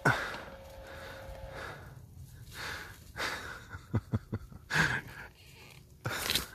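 A person breathing hard with effort, in repeated heavy puffs and gasps. A sharp knock comes right at the start, and a few short dull thumps follow about four seconds in.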